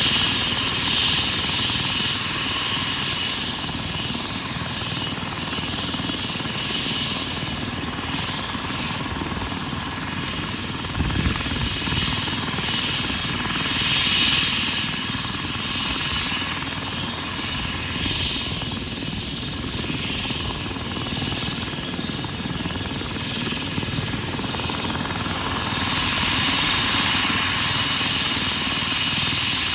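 STAT MedEvac Airbus H135 twin-turbine medical helicopter running on the ground: a steady turbine and rotor sound with a rushing hiss that swells and fades every few seconds.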